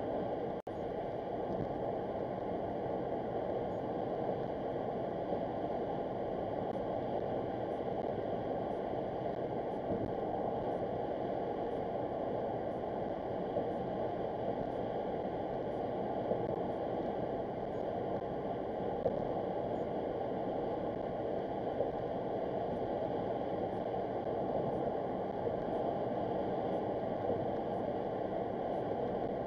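Steady road and tyre noise inside a car cruising at highway speed, a low, even rushing sound. It cuts out briefly about half a second in.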